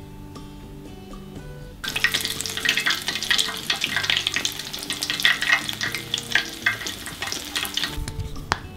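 Panko-coated cheese dog deep-frying in hot oil: a dense crackling sizzle starts about two seconds in and stops near the end. Soft background music runs underneath.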